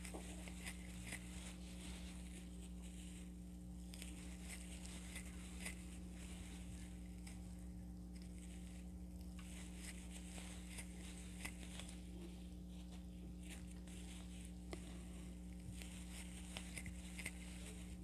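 Faint rustling and small ticks of a crochet hook pulling yarn through stitches, over a steady low hum.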